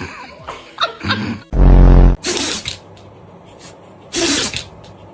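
Dogs sneezing: two short, sharp sneezes about two seconds apart, just after a brief, very loud low sound.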